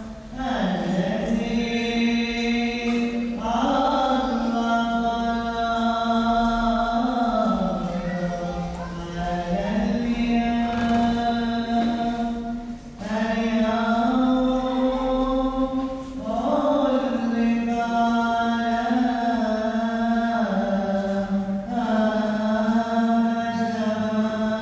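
Orthodox liturgical chant: a slow hymn sung in long held notes, stepping between a few pitches, with a short break for breath every few seconds.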